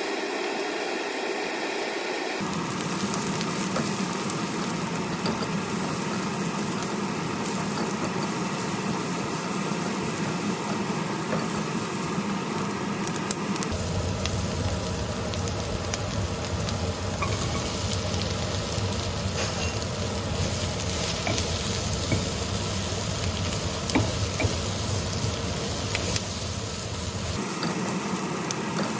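Food frying in a hot pan: a steady sizzle with some stirring. About halfway through the sizzle turns heavier and lower.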